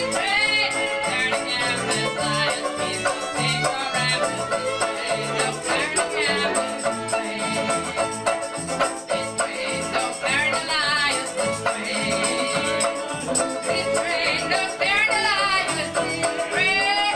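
Live acoustic folk band playing: women singing together over fiddle, ukulele and button accordion, with a steady rhythm.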